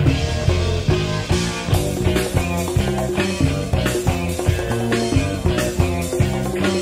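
Funk-rock band recording: a bass line stepping between short notes over a steady drum beat.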